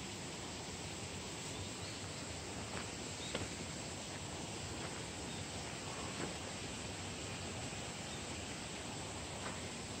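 Steady outdoor background hiss with a few faint, light clicks scattered through it.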